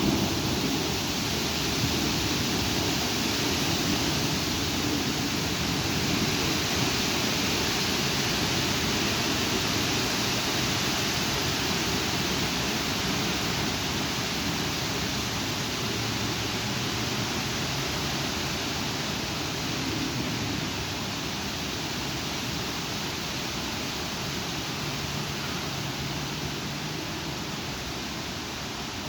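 Strong thunderstorm wind with rain, a steady rushing noise that slowly eases toward the end.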